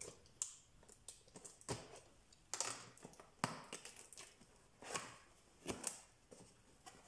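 Cardboard box being opened by hand: packing tape slit with a utility knife and peeled back, then the flaps pulled open, giving a series of irregular scrapes, short rips and cardboard crackles.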